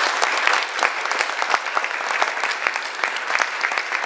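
An audience applauding, many hands clapping at the end of a talk.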